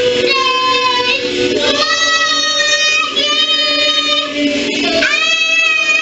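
A young girl singing into a toy microphone, holding a few long notes and moving between them.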